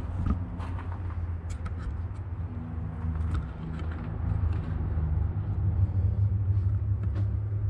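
Steady low mechanical hum, with a few faint clicks over it.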